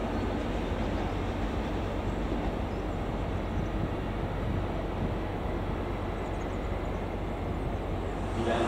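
A train at a station running with a steady rumble and a low, even hum, getting louder right at the end.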